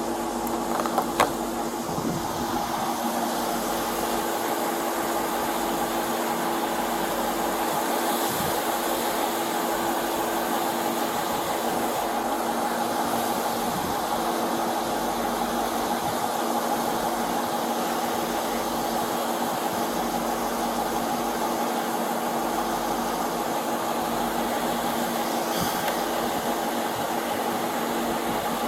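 Steady mechanical hum with a few constant tones over an even noise, like an engine and fan running, with a single sharp click about a second in.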